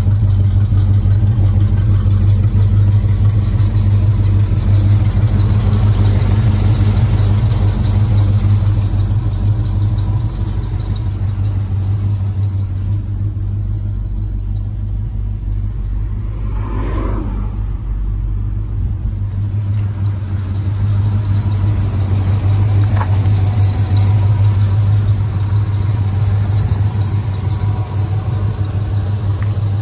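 1986 Chevrolet C10 Silverado pickup's engine idling steadily, a little quieter for a while in the middle, with a brief gliding tone about halfway through.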